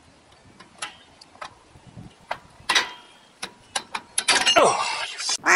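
Rear drum-brake hardware on a 1990 Ford Bronco being worked with a brake spring tool: scattered metallic clicks and taps, then a louder scraping rattle of metal for about a second near the end.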